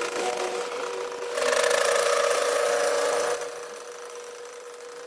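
A power tool running with a steady hum, louder for about two seconds in the middle as it works, then easing back.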